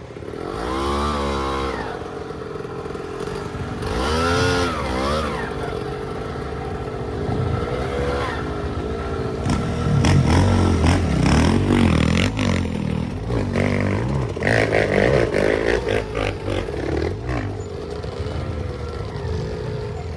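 Off-road enduro motorcycle engine revving in repeated bursts that rise and fall in pitch, under load on a hard climb, with clattering and knocks from the bike over rough ground.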